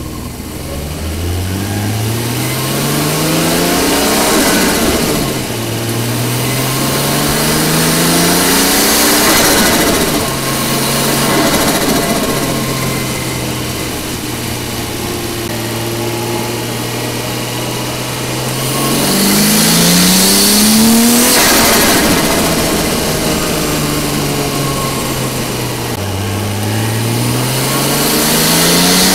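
Nissan RB25DET Neo turbocharged straight-six heard from inside the engine bay while driving, its pitch rising as it pulls up through the gears, with a rushing hiss at the top of each pull. It climbs twice in the first ten seconds, holds a steady cruising note for about eight seconds, then pulls up again twice near the end.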